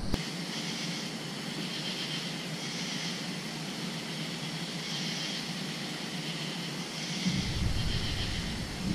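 Steady night-time chorus of insects, a high shimmering sound that swells and fades about every two seconds. A low rumble joins about seven seconds in.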